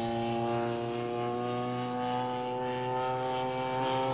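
Zenoah G-62 two-stroke gasoline engine of a large radio-controlled Corsair model, buzzing steadily with its propeller in flight.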